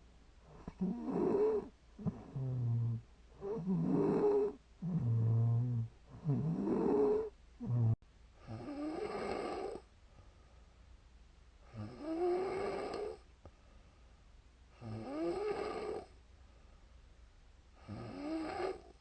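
A woman snoring in her sleep. For the first eight seconds the snores come quickly and irregularly, some with a low buzzing snort. After an abrupt break they slow to one long snore about every three seconds.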